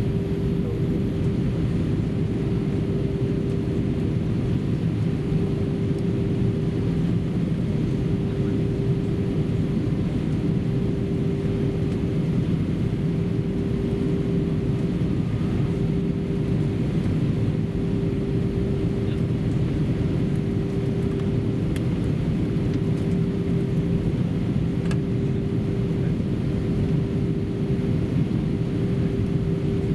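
Airbus A319 cabin noise in flight: a steady, even drone of engines and airflow, with one steady hum-like tone held over it.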